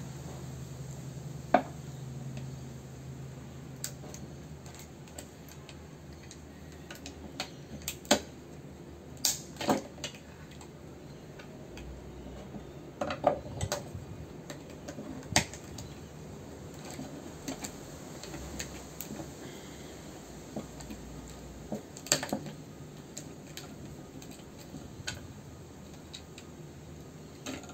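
Irregular metallic clicks, clinks and knocks of hand tools and loose parts while an HID lighting ballast is dismantled and components are levered and cut off its circuit board. The sharpest knocks come about a second and a half in and around eight, fifteen and twenty-two seconds in.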